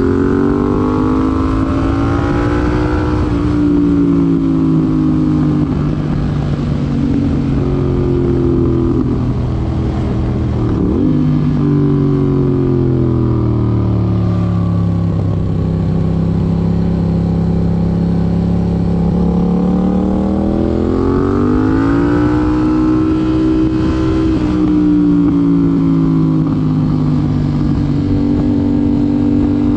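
A Yamaha MT-07's parallel-twin engine, breathing through an aftermarket IXIL IXRACE MK2 exhaust, is ridden on the road. The engine note rises under acceleration and drops in steps at gear changes several times. In the middle it holds a long, steady, lower note before climbing again.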